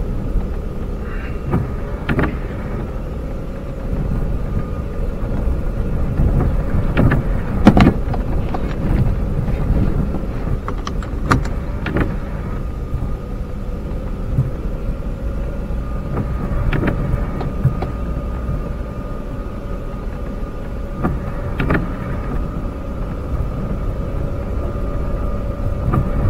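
A four-wheel-drive vehicle in low range creeping down a snow-covered dirt road, heard from inside the cab. Engine and tyre rumble with a steady whine, broken by scattered knocks and clicks.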